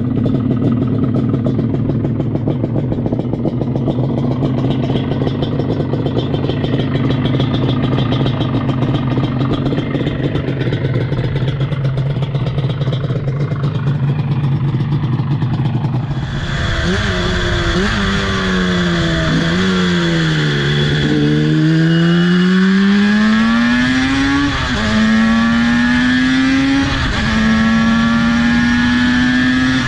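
Two-stroke 250 twin motorcycle engine, believed to be from a Yamaha RD250, running steadily. About halfway through, the bike is ridden: the engine note falls and rises, then climbs and drops back twice as it shifts up through the gears.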